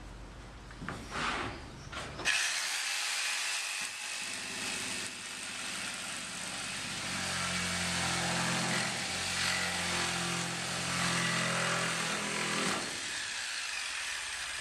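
Reciprocating saw starting about two seconds in and cutting through a timber dwang, running steadily for about ten seconds before it stops near the end. A few light handling knocks come before it starts.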